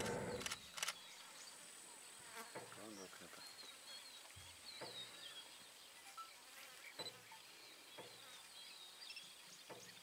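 Faint outdoor bush ambience with insects buzzing; a fly passes close about three seconds in. Brief high chirps are scattered throughout.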